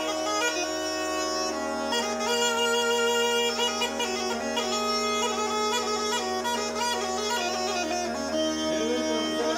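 Bulgarian gaida bagpipe playing a folk melody over a steady drone, the melody changing note often.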